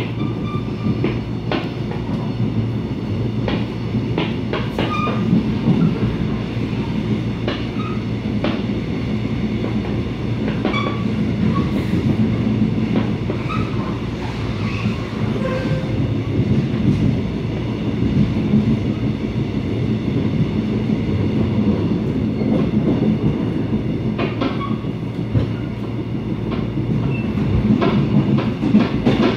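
Mugunghwa-ho passenger coach running at speed, heard from inside the carriage: a steady rumble of wheels on rail with scattered clicks and knocks.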